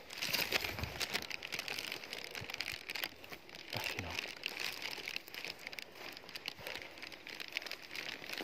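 Rustling and crackling of dry grass and leaf litter as someone walks barefoot through brush, with stems brushing and snapping in many small irregular clicks.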